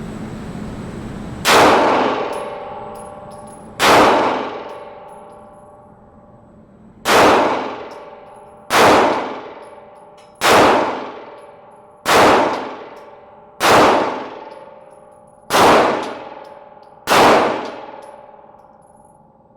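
Nine shots ringing a steel target at a gun range, each a sharp hit followed by a metallic clang that rings out and fades over a second or two. They come irregularly, about one every 1.5 to 3 seconds.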